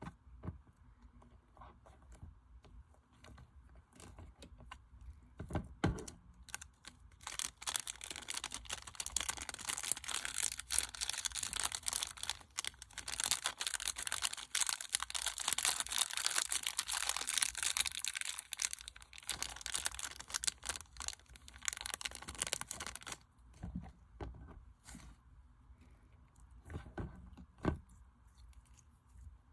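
Slime being worked by hand, with scattered sticky clicks and pops that thicken into dense crackling for about fifteen seconds in the middle, then thin out again.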